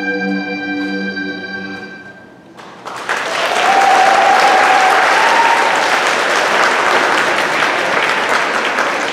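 Recorded orchestral dance music holding a final chord and fading out about two seconds in. Then the audience breaks into loud applause, with a cheer heard over it shortly after.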